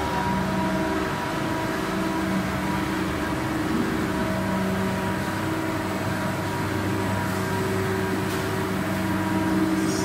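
Plastic sheet extrusion line running: a steady machine drone of motors and drives, several even hums at different pitches over a constant noisy rush.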